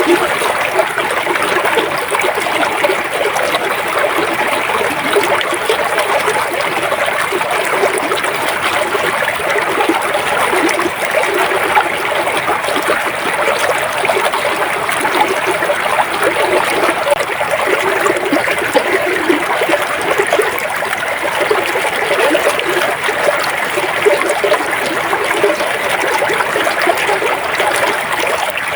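Flowing river water: a steady, unbroken rush with no pauses or changes.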